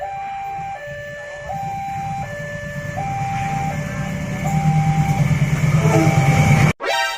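Two-tone hi-lo emergency siren, switching between two pitches about every three-quarters of a second, over a low rumble that grows louder. It cuts off abruptly near the end.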